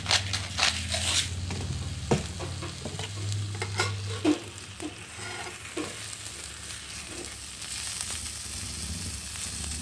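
Seitan sizzling steadily in olive oil on an electric Cuisinart grill, with a few sharp clicks in the first second and scattered light knocks of handling.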